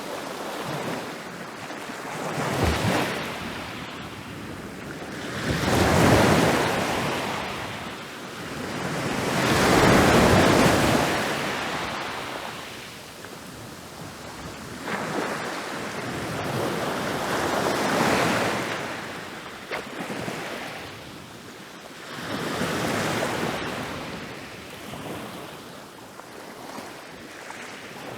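Ocean waves rolling in and breaking on a beach. The surf swells and ebbs in surges every few seconds, the loudest breaks coming about six and ten seconds in.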